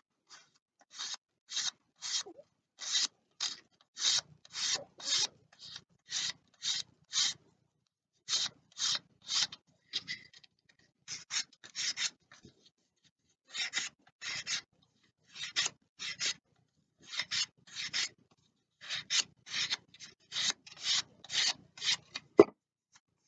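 Balsa wood being hand-sanded with a sanding block of medium-grit (P180) abrasive paper: short back-and-forth strokes, about two a second, with a brief pause about halfway through. Near the end a single sharp knock as the block is put down on the bench.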